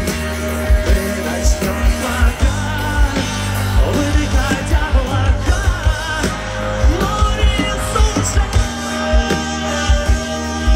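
Rock band playing live through a large outdoor PA, heard loud from within the crowd, with a steady kick-drum beat under the guitars.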